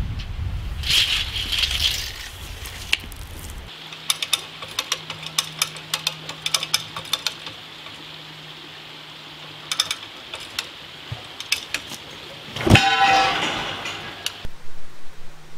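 Come-along ratchet clicking in quick irregular runs as the cable pulling on the wall is tightened. About thirteen seconds in, the concrete block wall gives way and the blocks crash down, a loud crash that dies away over a second or two.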